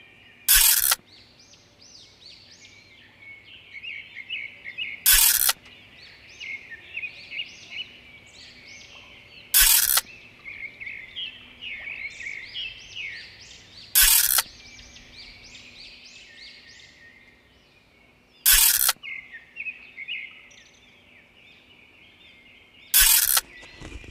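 Many small birds chirping continuously. About every four and a half seconds, six times in all, a short loud burst of noise cuts across the chirping.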